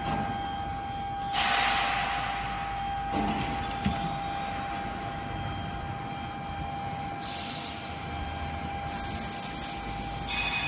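CNC bridge cutting machine running with a steady high whine, broken by several bursts of hissing lasting about a second or two each and a single sharp click about four seconds in.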